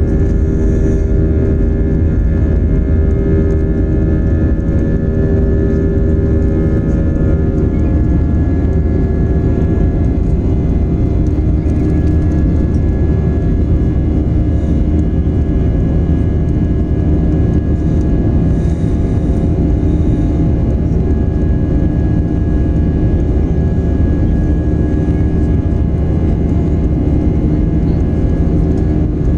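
Airliner engines running during the climb after takeoff, heard inside the cabin as a loud, steady rumble with several steady humming tones. The tones change about seven or eight seconds in.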